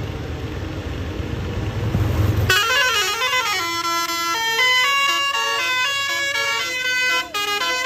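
Low rumble of a bus, then about two and a half seconds in a Basuri telolet horn starts playing a loud multi-note melody, its notes stepping up and down in quick succession.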